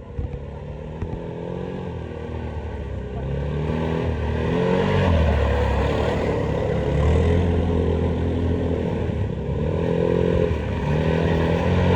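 ATV (quad bike) engine running and revving up and easing off several times as it rides, getting louder over the first few seconds, with rattling noise underneath.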